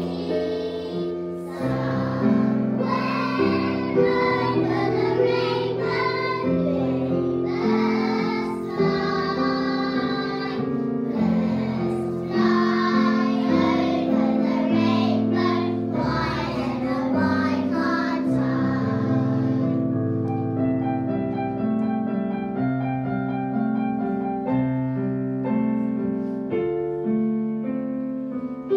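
A group of young children singing a song together over a musical accompaniment. About two-thirds of the way through the singing stops and the accompaniment plays on alone.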